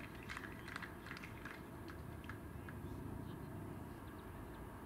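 Quiet outdoor ambience of a cricket field: a steady low rumble with faint, short high ticks, several in the first couple of seconds and fewer after.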